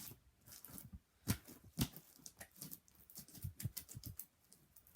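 Hands working foam-bead slime, a run of short sticky clicks and pops with a couple of sharper ones early and a dense cluster about three to four seconds in.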